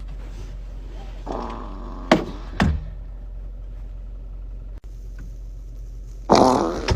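Steady low hum of a car's interior, with two sharp clicks a little over two seconds in and a louder, rough sound near the end.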